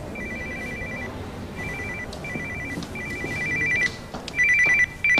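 Electronic telephone ringing: a rapid two-tone trill in short bursts with brief gaps, getting much louder about four seconds in.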